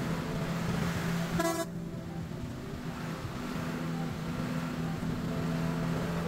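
A vehicle horn gives one short toot about one and a half seconds in, over the steady hum and road noise of a coach driving on a wet road.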